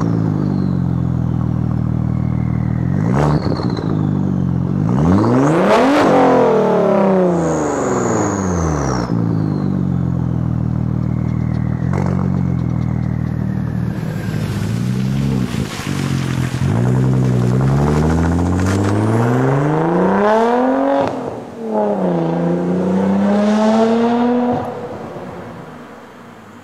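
Audi B5 S4's twin-turbo 2.7-litre V6 through a custom 4-inch single exhaust with a Vibrant muffler, idling with a few sharp throttle blips. It then pulls away, rising in pitch, dropping at a gear change about 21 seconds in, rising again and fading quickly near the end as the car drives off.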